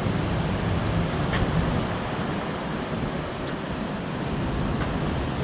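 Steady rushing outdoor noise: wind buffeting the microphone, with surf beneath it.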